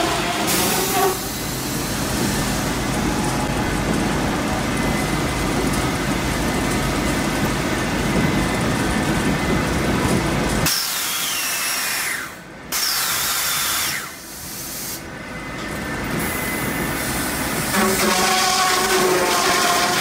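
A firewood processor running, its engine and hydraulics giving a steady machine drone. About halfway the low drone drops away suddenly with a falling whine, and near the end the drone returns as the bar saw cuts into a log.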